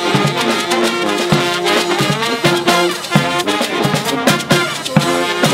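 Brass band music: trumpets and trombones playing an upbeat tune over a steady drum beat.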